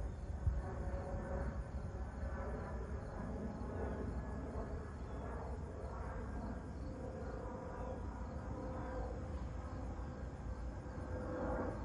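Small business jet passing overhead at a distance: a steady low rumble with a droning hum above it.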